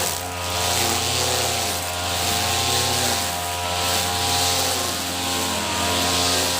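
Brush cutter (grass-cutting machine) engine running steadily, its note swelling and easing every second or two.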